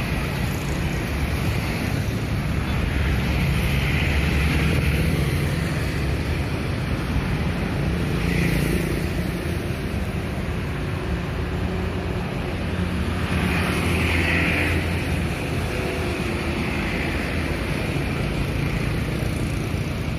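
Steady city road traffic with vehicles passing, a continuous low rumble that swells as vehicles go by, about four seconds in and again around fourteen seconds in.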